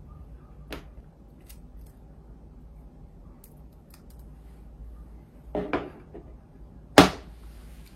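Hands working a hard drive's plastic mounting brackets: a few soft clicks, a short scraping rattle, then one sharp loud click near the end.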